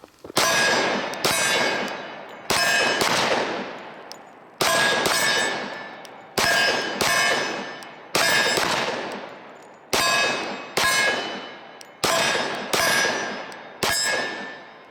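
A Glock 20 Gen 4 10mm pistol fires about a dozen shots, singly and in quick pairs at uneven intervals. Each shot is followed by a metallic ring that fades over a second or so, the sound of steel targets being hit.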